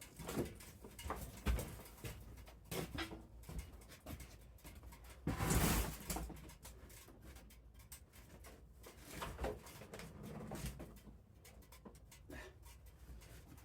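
Scattered light knocks and clicks, with a short rushing noise about five seconds in.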